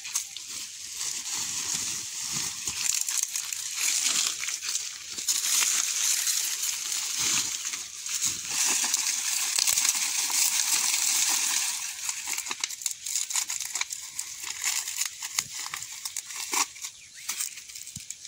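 Dry maize stalks, leaves and husks rustling and crackling as fully dried ears of corn are pulled and husked by hand. The rustling is dense for about the first twelve seconds, then thins to scattered crackles.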